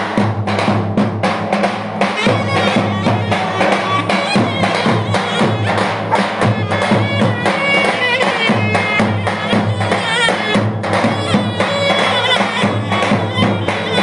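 Clarinet playing an ornamented Turkish folk tune over steady, fast strokes of davul drums beaten with sticks.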